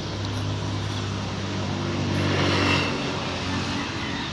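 An engine running steadily, growing louder for a moment about two and a half seconds in.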